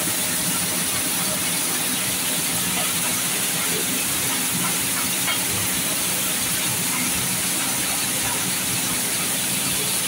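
Wheat washing machine in a flour mill running steadily, with its rotor drum and screw conveyor turning. A constant hiss sits over a low machine hum.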